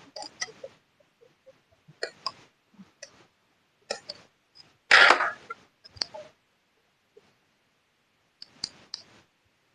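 Scattered clicks and light knocks of small drone parts, screws and tools being handled during assembly, with one louder half-second burst of rustling noise about five seconds in.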